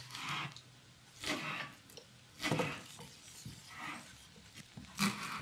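Kitchen knife cutting food on a cutting board: a few soft, separate cuts about a second apart.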